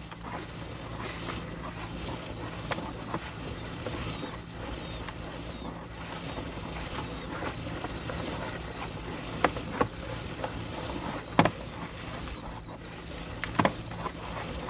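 Sewer inspection camera pushed along a 3-inch PVC drain line: a steady low hum from the camera rig with scraping and a few sharp knocks as the camera head and push rod bump through the pipe and its fittings, the loudest knocks in the second half.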